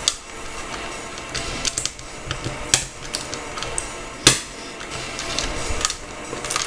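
Small plastic Lego pieces clicking and clattering irregularly as they are handled on a plastic baseplate and snapped together, with one sharp click about four seconds in standing out as the loudest.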